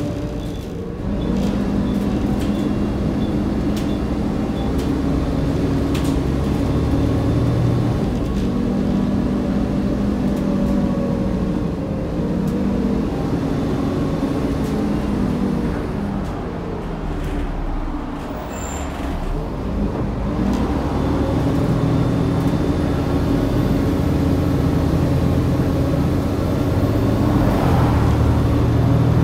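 Volvo B7TL double-decker bus's rear-mounted six-cylinder diesel engine heard from inside the lower deck, its note stepping up and down as the bus pulls away, eases off about two-thirds of the way through, then picks up again. Occasional interior clicks and rattles.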